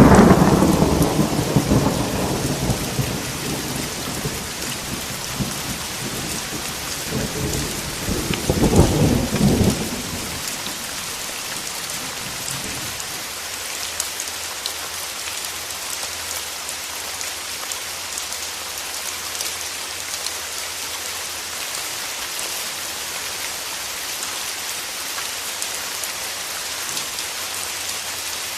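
Steady rain with thunder: a loud clap that rolls away over the first few seconds, then a second rumble of thunder building and fading around eight to ten seconds in. After it, only the rain hiss goes on, with drops ticking.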